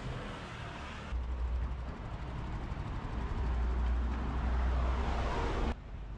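City street ambience: traffic noise with a heavy low rumble, changing abruptly about a second in and again near the end.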